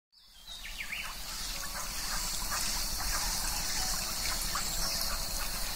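Water of a small waterfall trickling and splashing over rocks, a steady hiss that fades in at the start, with a few short chirping calls over it.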